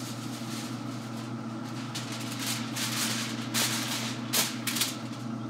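Aluminium foil crinkling and rustling in several short bursts from about two seconds in, as a sheet is handled and laid across the smoker grate, over a steady low mechanical hum.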